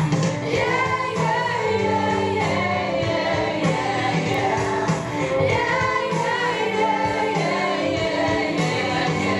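A song playing, with voices singing together over instrumental backing.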